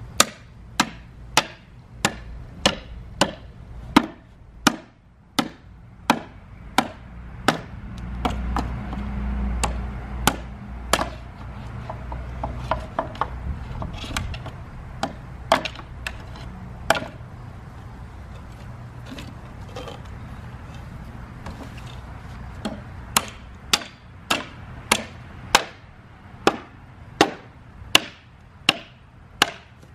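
Repeated hammer blows at a steady pace of about one and a half a second: a run at the start and another over the last seven seconds, with a few scattered lighter knocks in between.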